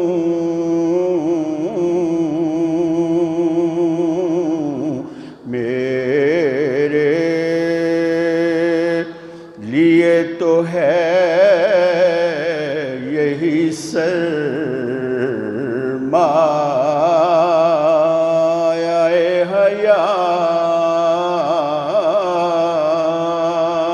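A man's voice singing a naat, an Urdu devotional poem in praise of the Prophet, in long drawn-out phrases with a wavering, ornamented pitch. The voice breaks off briefly about five and nine and a half seconds in.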